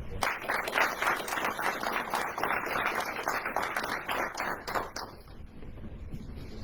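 Audience clapping for about five seconds, then dying away.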